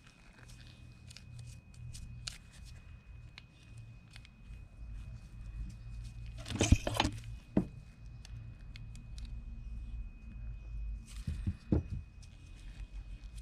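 Small metal clicks and scraping as a rusted, seized spinning fishing reel is worked apart by hand, with a louder clatter of parts about six and a half seconds in and again around eleven to twelve seconds.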